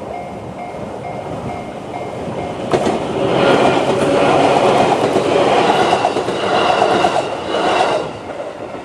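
A JR 211-series electric multiple unit passes over a level crossing. Its wheels and running gear rush in suddenly about three seconds in and clack over the rails for about five seconds before falling away. The crossing's electronic warning bell, the JR standard tone, pulses steadily before the train arrives and is heard faintly again after it passes.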